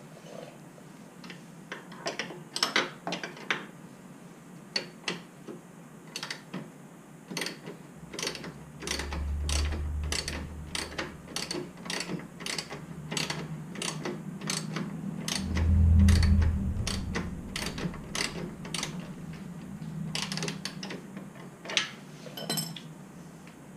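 Hand ratchet wrench clicking in steady back-and-forth strokes, about two clicks a second, as it backs out a tight bolt. A low hum swells twice, loudest about two-thirds of the way through.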